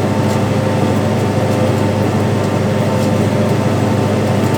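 Farm tractor's engine running steadily while pulling a planter in the field, a constant drone picked up close by on the tractor itself.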